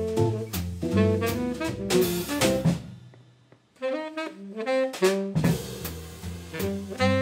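Jazz quartet of baritone saxophone, archtop electric guitar, upright bass and drum kit playing a swing standard. About three seconds in the band stops for a near-silent break, a lone melodic line comes in, and the full band returns about five seconds in.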